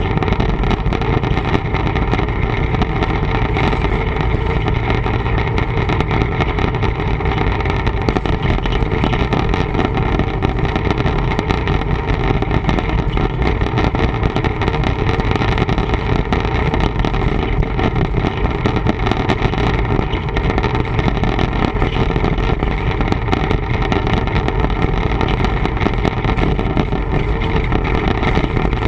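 TEM2 diesel shunting locomotive running steadily on the move, a constant engine drone with no change in pitch or load, picked up on an action camera's microphone.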